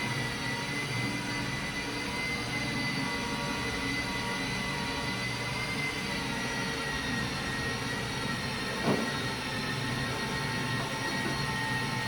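Steady motor whine from air-conditioner installation work, a power tool running continuously with a low rumble beneath the whine. A single brief knock comes about nine seconds in.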